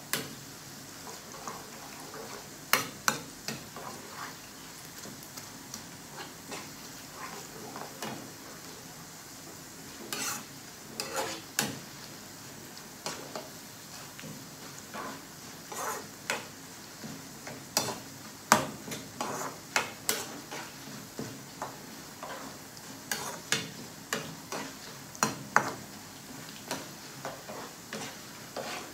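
Metal spoon scraping and clinking against a small frying pan, stirring crumbly gram-flour mixture frying in oil, with a steady low sizzle underneath. The scrapes come irregularly, several a second in spells.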